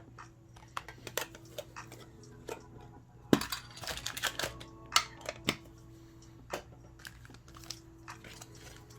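Irregular clicks and taps of small items from a Pokémon mini tin, such as the metal tin, a coin and booster packs, being handled and set down on a table. A short burst of rustling and knocking comes about three and a half seconds in.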